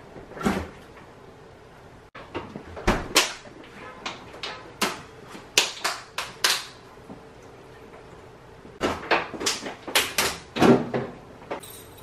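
Knocks and clatters of things being handled in a small kitchen, in irregular clusters of sharp clicks with a quiet pause between them.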